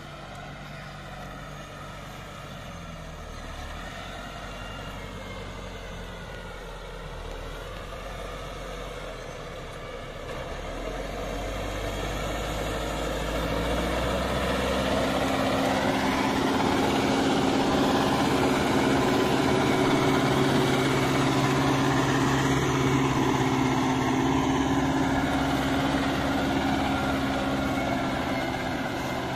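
New Holland tractor's diesel engine running steadily, growing louder over a few seconds about halfway through and then holding an even note.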